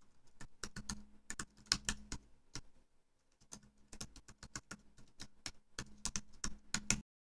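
Typing on a computer keyboard: two quick runs of keystrokes with a short pause between them, stopping abruptly shortly before the end.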